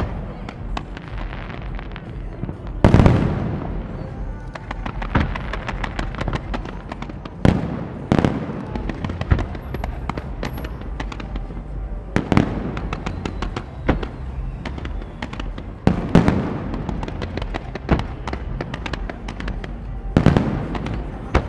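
Fireworks display: aerial shells bursting with a loud boom about every four seconds, five in all. Between the booms comes a dense run of crackling and popping from smaller bursts.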